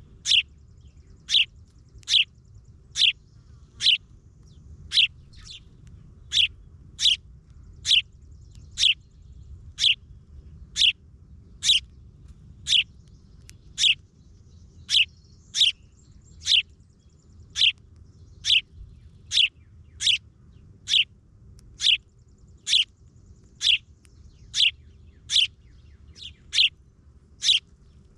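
A bird chirping: a single short, high note that drops in pitch, repeated steadily about once a second.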